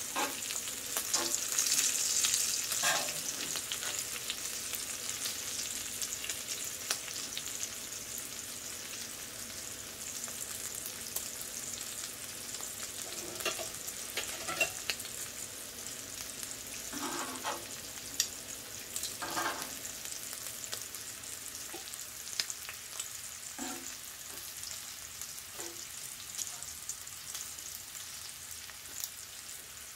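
Bacon and onions sizzling in grease on a Blackstone 22-inch steel flat-top griddle, a steady frying hiss. It is loudest in the first few seconds, then eases a little, with occasional short taps and pops.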